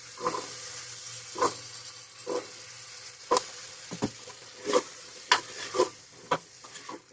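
Elephant foot yam pieces being stirred into spiced oil in a pressure cooker: a steady sizzle with a spoon scraping and knocking against the pot roughly once a second.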